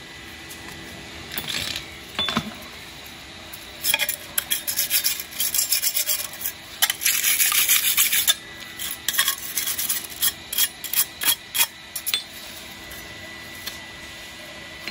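Steel wire brush scrubbing the welded seam on thin 0.7 mm stainless sheet in quick back-and-forth scraping strokes. The strokes start about four seconds in, run together for a moment in the middle, and stop about twelve seconds in. A short scrape and a light click come about two seconds in.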